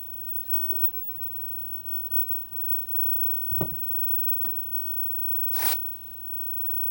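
Steady low hum with faint steady tones from a running tube TV. Over it come a light click, a loud knock about halfway, another click, and a short hiss-like burst lasting a fraction of a second near the end.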